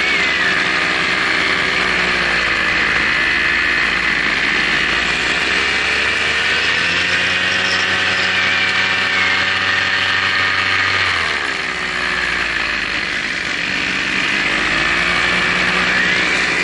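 Multirotor drone's electric motors and propellers whirring steadily, their pitch rising and falling together as the throttle changes, with a sharp drop about two-thirds of the way through.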